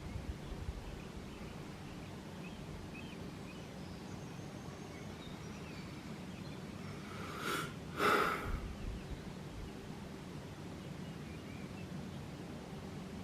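A steady low hum, recorded as one of the unexplained noises reported around Swansea, over faint background hiss. About seven and a half seconds in come two short rushes of noise in quick succession.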